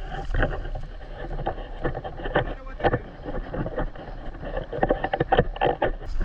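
Wind buffeting the microphone with a steady low rumble, broken by irregular knocks and scuffs.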